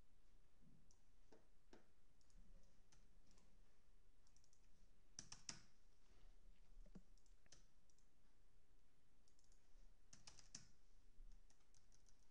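Near silence with faint, scattered clicks of a computer mouse and keyboard. A few come in quick clusters about five and ten seconds in.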